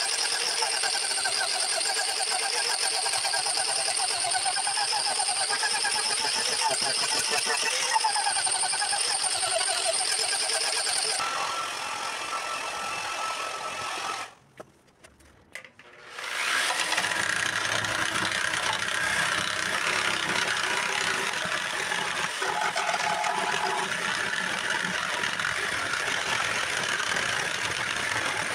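Angle grinder running with its disc carving into the inside of a pink cedar root bowl, the motor whine wavering as the load changes. It stops about halfway through, and after a short silence a larger angle grinder starts and grinds the wood with more hiss.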